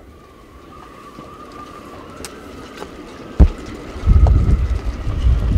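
Faint steady hum at first, then a single sharp knock about three and a half seconds in. From about four seconds in, strong wind buffets the microphone with a loud low rumble.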